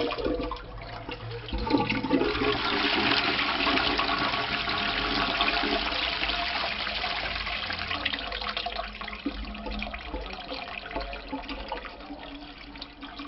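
Twyfords Classic horizontal-outlet toilet flushing: water rushes into the bowl about two seconds in, stays strong for several seconds, then slowly tapers off toward the end.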